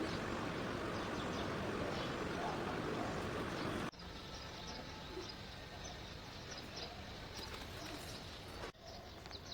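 Steady outdoor background noise for about four seconds, then, after an abrupt cut, small birds chirping in short, repeated high notes over a quieter background, with another cut near the end.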